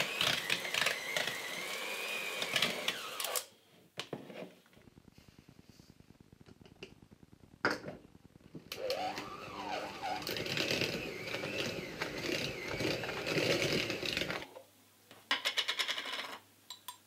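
Electric kitchen mixer running in two long spells, its pitch rising and falling as it works. Between the spells comes a run of quick even ticks, about seven a second, and near the end a short clatter.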